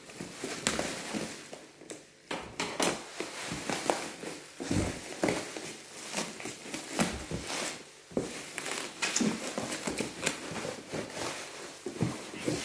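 Plastic bubble wrap crinkling and rustling as it is pulled off a cardboard box, with many irregular sharp crackles and light handling knocks of the box.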